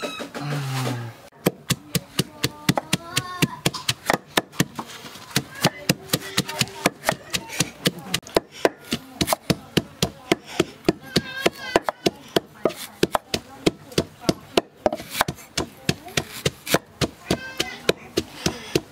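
Kitchen knife slicing fresh ginger on a round wooden chopping board: a steady run of sharp knocks of the blade on the wood, about two to three a second.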